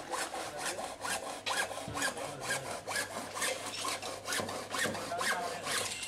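Hand sawing: steady, rhythmic back-and-forth scraping strokes, about three a second.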